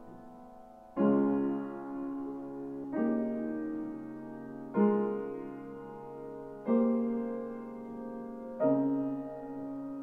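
Piano playing slow chords in a classical piece, a new chord struck about every two seconds and left to ring and fade.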